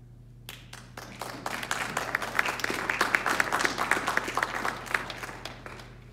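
A small audience clapping: it begins about half a second in, swells to a full round of applause, and dies away near the end.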